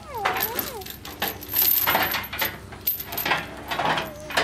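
Steel chain rattling and clinking as it is handled and pulled, an irregular run of sharp metallic clinks.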